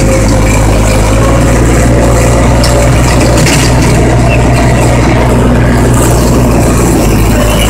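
Engine of a heavy work vehicle running steadily: a loud, even low drone with a faint steady whine above it.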